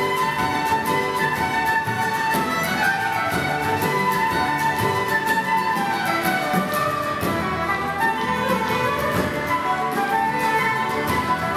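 Celtic folk ensemble playing live: fiddle and flute carry the tune over strummed guitar and bodhrán.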